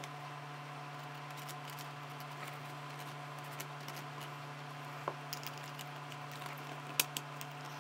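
Faint light clicks and taps of small 3D-printed plastic parts being handled and glued, over a steady low hum. One sharper click comes about seven seconds in.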